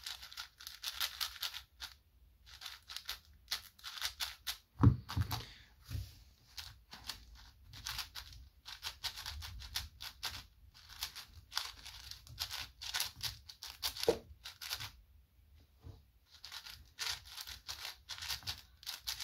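Brand-new YJ MGC magnetic 6x6 speedcube being turned by hand: quick runs of plastic clicking and rasping as the layers turn, broken by short pauses. The cube is turning well, with no sign of pops. A single thump comes about five seconds in.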